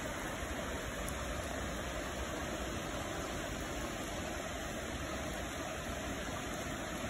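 Steady rain and water pouring over a weir, an even rushing hiss with a low rumble underneath.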